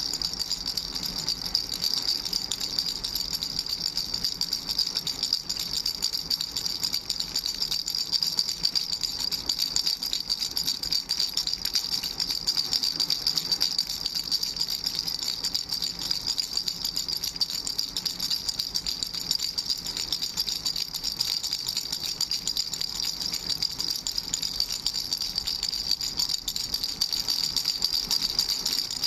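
Baby's ring rattle with three balls, shaken continuously: a fast, steady, high-pitched rattling.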